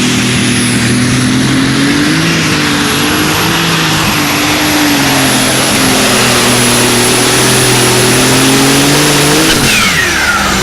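Light super stock pulling tractor's turbocharged diesel engine running hard at high revs, with a steady high turbo whistle over it. About nine and a half seconds in the throttle is cut, and the engine note and the turbo whistle both fall away together.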